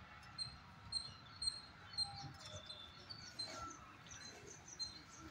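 Small birds chirping: short high calls repeat about twice a second, with other calls mixed in, over a faint low background rumble.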